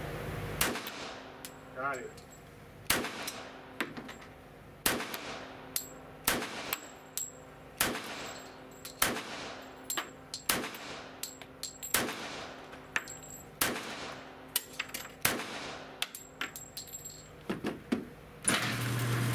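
CZ 97 B .45 ACP pistol fired in an indoor range: a long string of single shots, about one a second, each sharp crack trailed by a short echo. Near the end a steady hum starts as the lane's target carrier motor runs.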